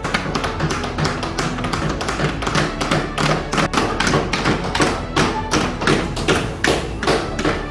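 Many hammers striking nails into wood at once, a busy, irregular clatter of overlapping taps, several a second.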